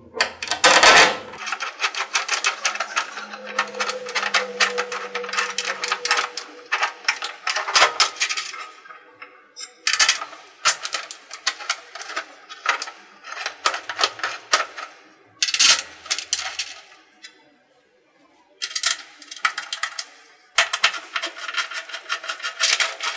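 A hand tool clicking rapidly against metal in several bursts with short pauses between, as the screws holding a scroll vacuum pump's cowling are driven in and tightened.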